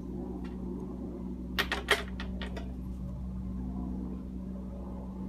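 Toyota 1ZZ inline-four engine running steadily with a knock, a few sharp clicks standing out about a second and a half in; the owner puts the knock down to failed spark plugs.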